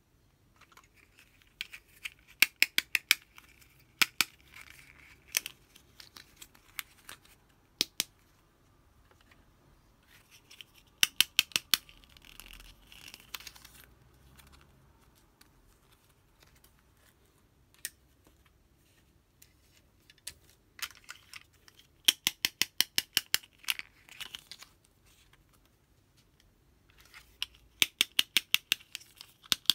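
Small plastic toy compact mirror handled close up: quick runs of sharp clicks and taps from fingernails on the hard plastic, in four bursts, with soft rustling and single clicks between.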